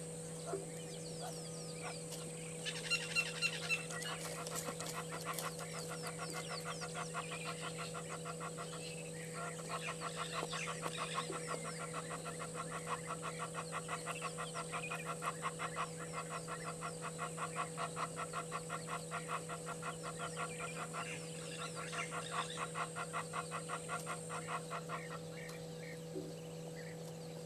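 Egyptian geese calling: a long run of rapid, evenly repeated honks, about four or five a second, with a few louder honks about three seconds in and short breaks along the way. A steady low hum runs underneath.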